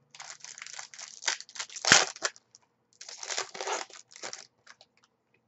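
Foil wrapper of a trading card pack being crinkled and torn open by hand, in two spells of crackling, the sharpest rip about two seconds in.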